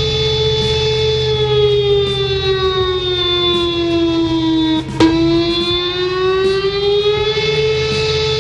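Warning siren sounding a steady tone over a low rumble. The tone slowly drops in pitch, gives a sharp click at its lowest point about five seconds in, then climbs back up to its first pitch.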